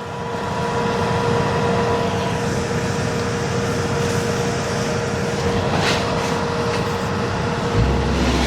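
An engine running steadily: an even drone with a constant hum, joined near the end by a deeper low rumble.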